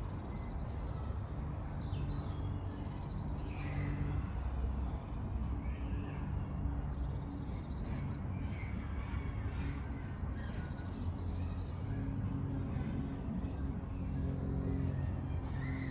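Steady low rumble of road traffic from a nearby high street, with scattered short bird calls and chirps over it.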